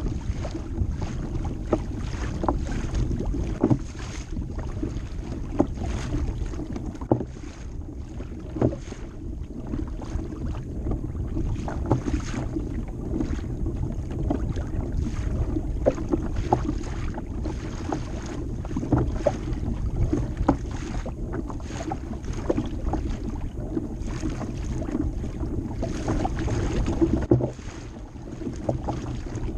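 Choppy water lapping and slapping against a plastic fishing kayak's hull as it moves along, with many small irregular knocks and wind buffeting the microphone.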